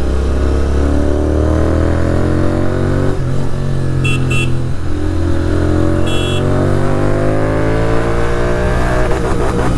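Royal Enfield GT650 parallel-twin running through an aftermarket full-system exhaust, accelerating hard with the pitch climbing, dropping at gear changes about 3 and 5 seconds in, then climbing again. A horn beeps briefly twice in traffic, and a few exhaust pops crackle near the end.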